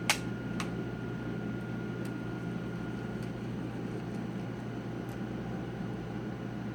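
Small metal clicks from driving screws into a laptop's screen brackets: a sharp click near the start, a second one about half a second later, then a few faint ticks, over a steady background hum with a faint high tone.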